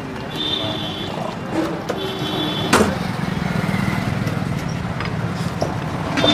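Street background noise with traffic. There is a single sharp slap about three seconds in, and a low steady hum runs on after it.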